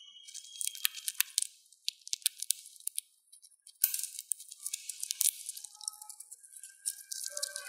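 Dwarf hamster cracking sunflower seed husks with its teeth: rapid, crisp clicks and crunches. They come in two runs, with a brief pause about three seconds in.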